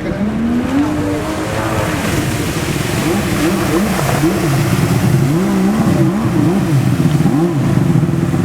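Jet ski engine running with the throttle worked on and off. Its pitch rises about a second in, then swings up and down repeatedly through the rest.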